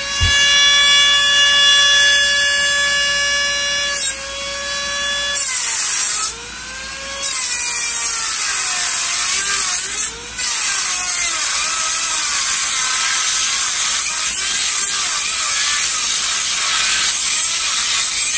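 Handheld rotary tool with a cut-off wheel, spinning with a steady high whine, then its pitch sagging and wavering as the wheel bites into a stripped bolt. About seven seconds in it turns to a harsh grinding hiss of metal being cut, with brief breaks where the wheel eases off.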